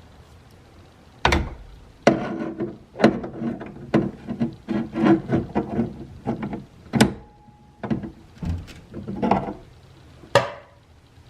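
Vice grips knocking and clanking against the metal window hardware as it is levered and bent back into shape: about a dozen sharp, irregular knocks, with a brief ringing note partway through.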